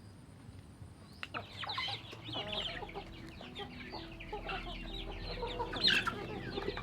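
Chickens clucking, many quick calls overlapping, starting about a second and a half in.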